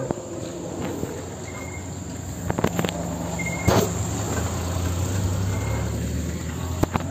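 Night insects, crickets, trilling steadily, with a short high chirp about every two seconds. A low engine hum swells through the middle and fades near the end, and a few sharp knocks break in.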